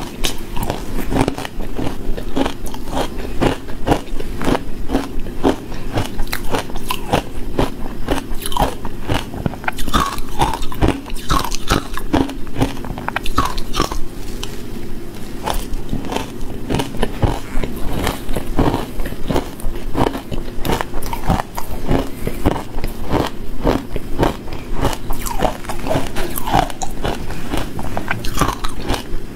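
Close-miked crunching and chewing of crushed matcha ice: a dense, unbroken run of crisp cracks as the ice grains break between the teeth.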